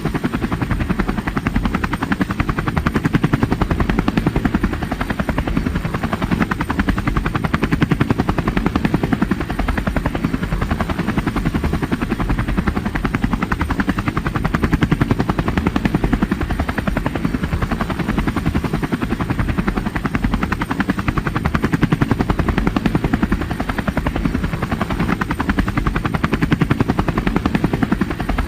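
Helicopter in flight: a steady, fast rotor chop over engine noise, heaviest in the low end, swelling and easing slightly every few seconds.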